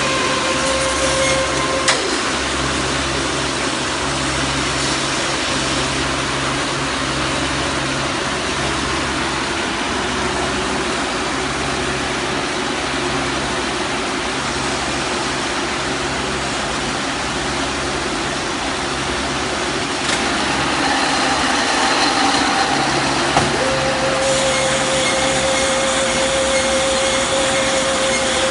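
Silage baler running under test: a steady mechanical noise with a low, regular pulsing and a steady whine that drops out about two seconds in and returns near the end. A sharp knock sounds about two seconds in, and the machine gets a little louder about twenty seconds in.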